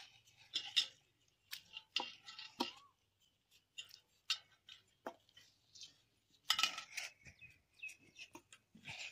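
A steel spoon scraping the red flesh out of watermelon rinds, with irregular short scrapes and clinks against the rind and the steel pot.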